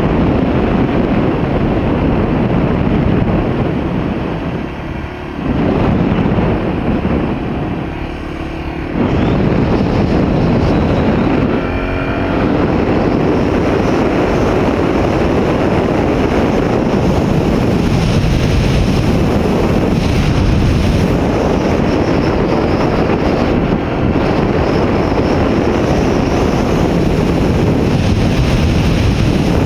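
Wind buffeting the microphone of a camera on a moving vehicle, with road noise: a loud, steady rush that drops briefly twice in the first third.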